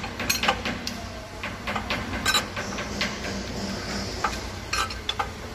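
Irregular light metallic clicks and taps from hands working the valve rocker arms on a Deutz TD 2011 L04 diesel's cylinder head during a valve lash adjustment, over a steady low workshop hum.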